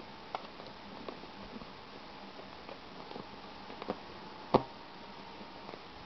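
Camera handling noise and rustling as a hand strokes a calico cat: scattered soft clicks and taps, with one sharper knock about four and a half seconds in. A faint steady whine sits underneath.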